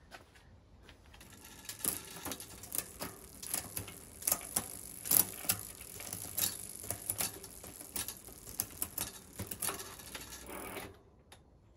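Bicycle drivetrain turned by hand on a workstand: the chain runs over the chainring and through the Shimano Deore SIS rear derailleur and sprockets with a faint steady hiss, broken by repeated sharp clicks as the indexed gears change. It dies away near the end.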